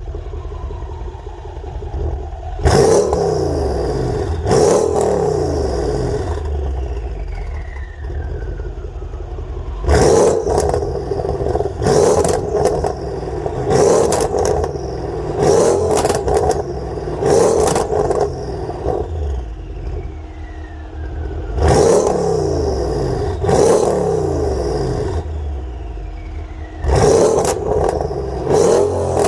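Tuned Mercedes engine with a pops-and-bangs map, revved in short blips about a dozen times. Each rev climbs and falls back with a run of crackles and pops on the overrun. Between the blips it settles back to idle, and a faint falling whistle trails after some of them.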